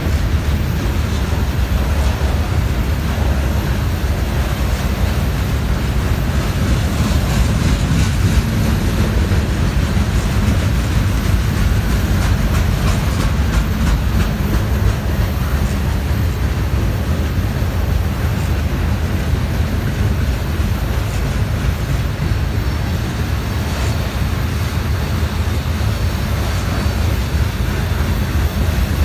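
Lumber-loaded centerbeam flatcars of a freight train rolling past: a steady, deep rumble of steel wheels on the rails.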